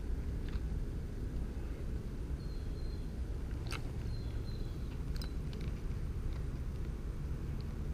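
Outdoor ambience dominated by a steady low rumble, with a few faint clicks and two brief thin high whistles, one about a third of the way in and one about halfway.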